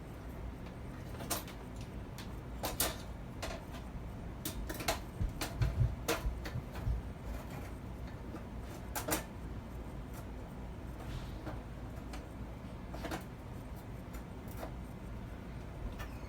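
Scattered metal clicks and knocks, with a dull thump about six seconds in, as an electric stove's coil burner element is handled, unplugged from one burner socket and pushed into another to test whether the element is faulty.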